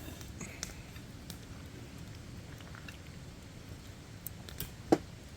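Quiet eating sounds, chewing with scattered small clicks, and one sharp click about five seconds in.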